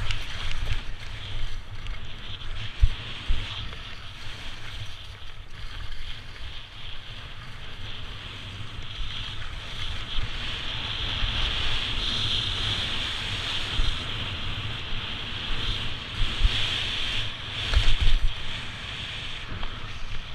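Wind buffeting the microphone during a fast descent on snow, with a steady hiss of edges sliding over the snow. A few stronger gusts swell up, one about three seconds in and a louder one near the end.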